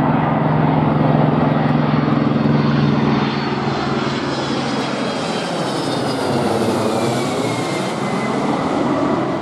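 Boeing 767-300ER twin-engine jetliner on approach with gear down, passing low overhead with a loud, steady jet roar. A whine in the engine sound falls in pitch from about the middle on as the plane passes and moves away.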